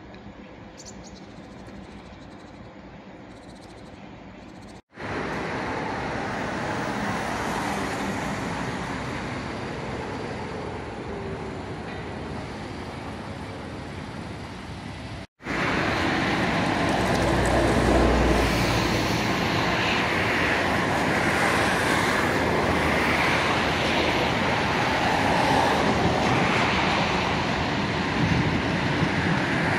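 Steady city road-traffic noise with no single event standing out. It is faint at first, cuts out briefly and returns louder, then cuts out once more and comes back louder still, with a low rumble a few seconds later.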